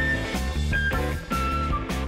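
Instrumental music: a held melodic lead line stepping from note to note over a steady bass.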